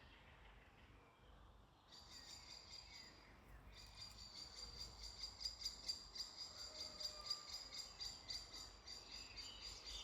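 Faint, high insect trill made of fast, even pulses, starting about two seconds in and breaking off briefly near the middle, over a low background rumble.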